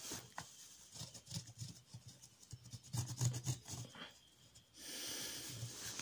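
Pencil scratching on paper in quick, repeated short strokes as hair is sketched onto a portrait drawing, turning into a steadier rubbing hiss near the end.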